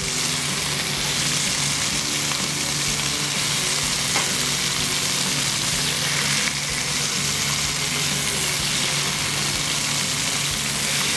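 Chicken breast fillets frying in hot oil in a sauté pan: a steady sizzle.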